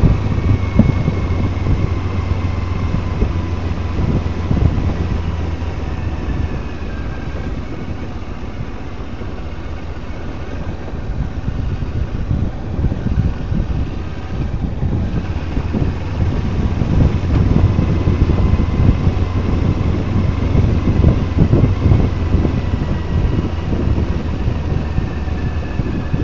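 Kawasaki Versys 300 parallel-twin motorcycle engine running while riding over a cobblestone road, with tyre rumble from the stones. It gets quieter for several seconds in the middle and picks up again about two-thirds of the way in.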